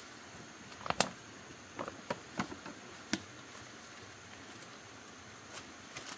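A few sharp, irregular knocks and taps, the loudest about a second in, over a steady high insect drone.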